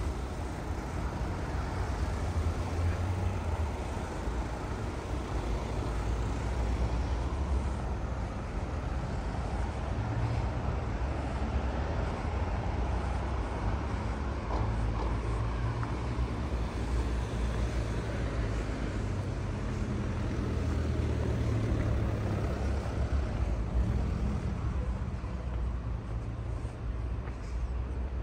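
Steady town road-traffic noise: a continuous low rumble of passing cars, with no single event standing out.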